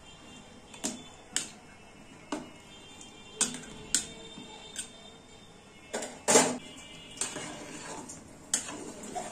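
Metal spatula knocking and scraping against the inside of an aluminium pot while stirring chunks of bottle gourd: about ten separate clanks, the loudest and longest about six seconds in.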